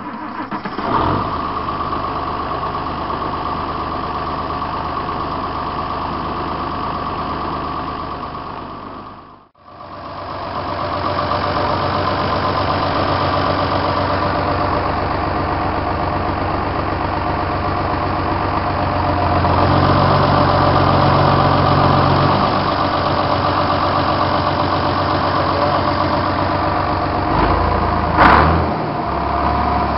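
Cockshutt 1750 tractor's six-cylinder diesel engine running steadily at idle, shortly after a cold start in freezing weather. The sound drops out briefly about a third of the way in, the engine note gets heavier for a few seconds about two-thirds in, and there is one short loud knock near the end.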